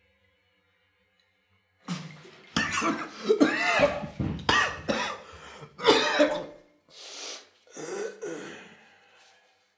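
A man coughing in several loud fits, starting about two seconds in and fading out near the end.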